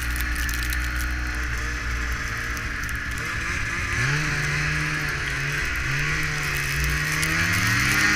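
Snowmobile engine running while riding, over a steady hiss. Its pitch steps up about halfway through, dips briefly, then climbs again near the end as the sled speeds up.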